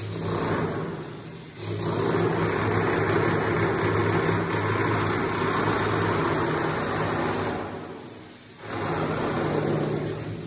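Corded electric demolition hammer chiselling into a brick wall: a short burst, then a long steady run of hammering, a brief stop about two-thirds of the way through, and a final burst that fades away.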